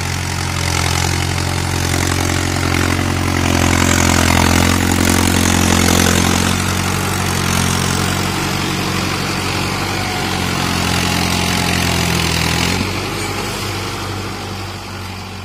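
Mahindra Arjun Ultra-1 555 DI tractor's diesel engine running steadily under load while pulling a cultivator through wet paddy mud. The engine note shifts about thirteen seconds in, and the sound grows fainter near the end.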